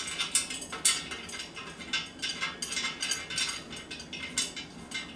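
Irregular light metallic clicks and scrapes as a screw is turned by hand into a joint of a painted metal stand's frame, the tubes clinking against each other.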